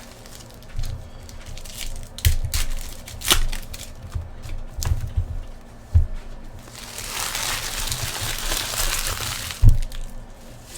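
Trading-card packaging being handled and opened: scattered knocks and taps, then about three seconds of wrapper crinkling and tearing starting about seven seconds in, ending with a sharp thump.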